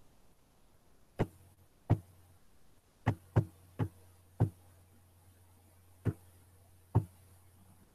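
Eight sharp, irregularly spaced clicks from a computer as a document is scrolled down, over a faint steady electrical hum.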